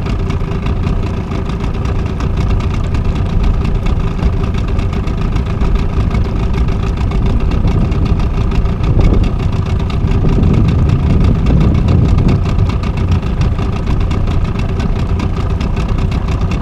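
Small tiller-steered outboard motor running steadily at low trolling speed, with wind rumbling on the microphone that swells about ten seconds in.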